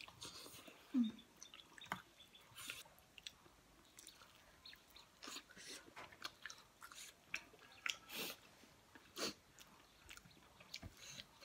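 Two people chewing and biting into chicken curry drumsticks, with irregular wet mouth smacks and soft clicks.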